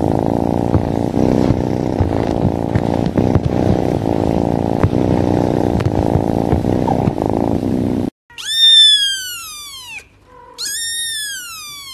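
A kitten purring loudly and steadily for about eight seconds, then a kitten gives two loud, high-pitched meows, each falling in pitch.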